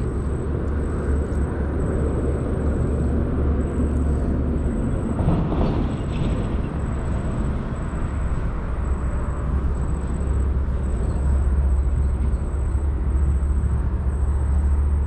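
Wind buffeting the camera microphone: a steady, loud low rumble that swells and eases a little, with a faint thin high whine running underneath.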